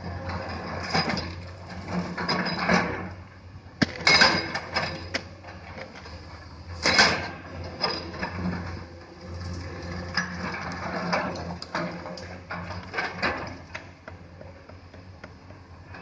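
Komatsu hydraulic excavators' diesel engines running steadily, with several sharp clanks of the steel bucket and stone against rock, the loudest about four and seven seconds in.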